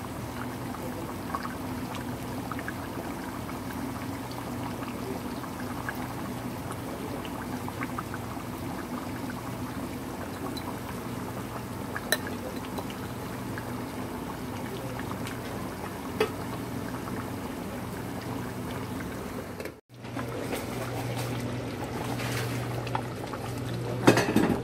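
Chicken and potato curry simmering in a pan: a steady bubbling and light crackling of thick sauce over a low steady hum. The sound drops out for a moment about twenty seconds in, and a louder knock comes near the end.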